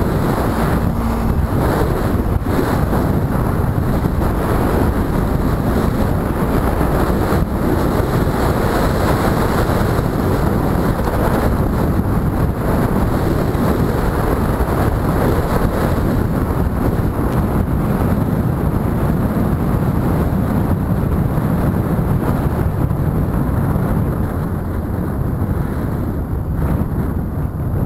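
Wind rushing over the microphone of a camera on a moving motorcycle, a loud steady roar with the bike's running noise beneath it. It eases off a little near the end as the bike slows.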